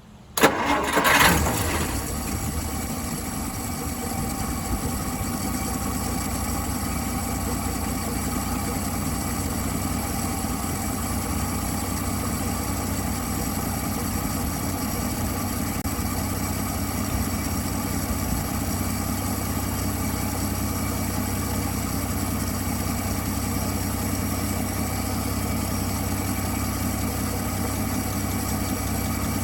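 1959 Dodge Coronet engine catching about half a second in, running up briefly, then settling into a steady idle. It is running on its own again now that the sticking carburetor needle valve has been fixed.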